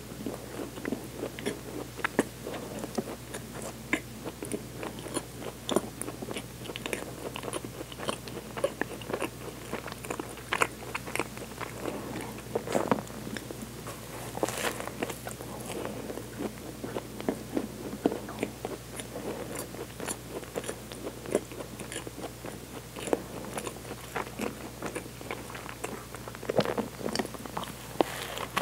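Close-miked biting and chewing of a chocolate-coated croissant: a steady run of small crunches and crackles from the flaky pastry, with a few louder bites.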